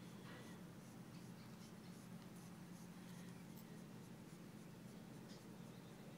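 Near silence: a steady low hum with faint, scattered scratchy ticks.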